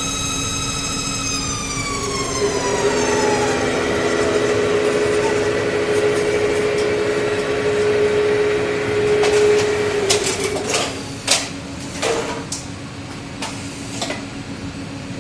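Plate-making machine running: a high motor whine falls in pitch as it slows, then settles into a steady hum over a low drone. About ten seconds in the hum stops and the mechanism gives several sharp clacks.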